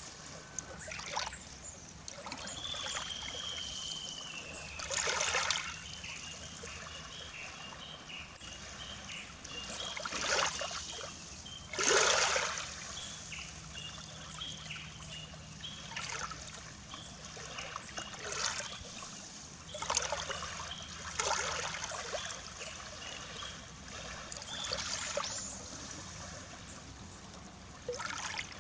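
Small sea waves lapping and splashing on the shore in irregular swells every few seconds. A bird calls over them: one long falling whistle, then a run of short repeated high notes.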